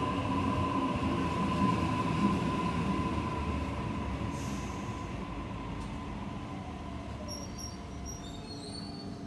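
Electric train running through the station and moving away. A steady high whine from its wheels and motors sounds over a low rumble, both fading steadily as it goes. A few short high chirps come near the end.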